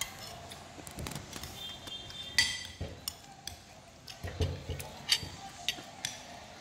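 Metal spoon clinking and scraping against a plate while eating, a run of scattered light clicks with one sharp ringing clink about two and a half seconds in.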